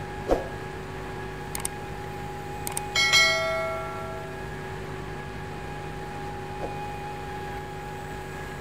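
Subscribe-button sound effect: a few sharp clicks, then about three seconds in a bell chime that rings and fades over about a second and a half. Under it runs a steady background hum.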